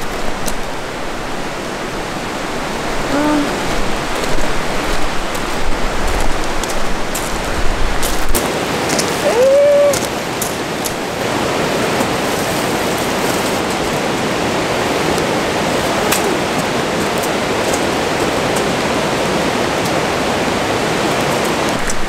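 Heavy rain falling steadily, a dense even hiss, with a few short clicks near the middle.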